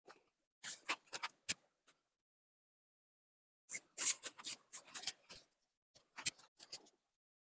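Nylon tent fabric rustling and crinkling as it is handled and folded, in three bursts with dead silence between them.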